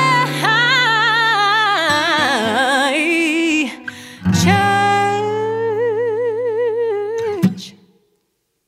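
Country song performed by a female singer with acoustic guitar: the voice holds long notes with vibrato over strummed chords. A sharp final hit comes about seven and a half seconds in, and then the music stops.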